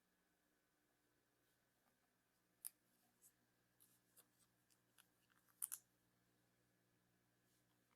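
Faint, scattered soft clicks and scrapes of trading cards being handled and slid through a stack, the loudest a quick pair of clicks a little past halfway; otherwise near silence with a low hum.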